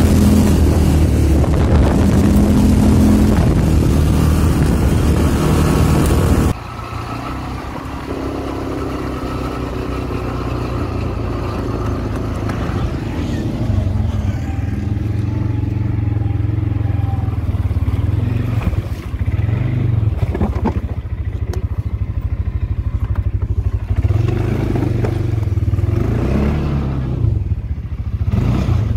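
ATV engines running under way off-road: loud and busy for the first six or so seconds, then dropping suddenly to a quieter, lower engine note that rises and falls as the throttle is worked.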